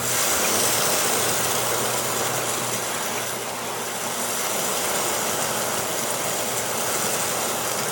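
Aquarium overflow water pouring and splashing into the sump, a steady rushing like waves crashing.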